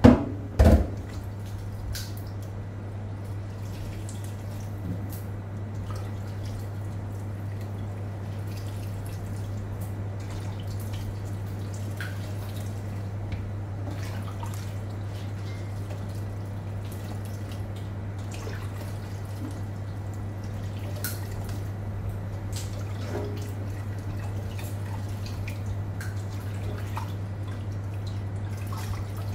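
Diced pomelo pith being squeezed and rinsed by hand in water in a stainless steel sink, with soft drips and splashes; this is the salting-and-squeezing step that draws out the pith's bitterness. Two loud knocks right at the start, and a steady low hum underneath.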